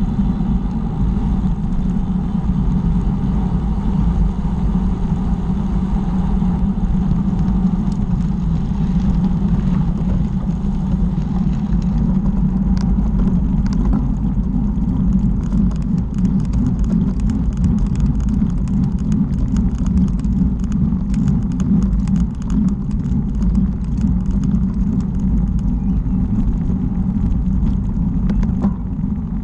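Wind buffeting the microphone of a camera on a moving bicycle, a steady low roar mixed with tyre noise on the tarmac. From about twelve seconds in there is a rapid crackle of small clicks and rattles as the road gets rougher.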